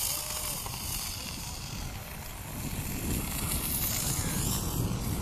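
Jetex solid-fuel rocket motor hissing as the small model jet flies away, the high hiss fading as it goes. A low rumble rises about halfway through.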